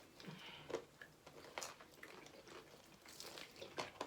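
A person chewing crispy fried chicken: faint, irregular crunches and mouth sounds.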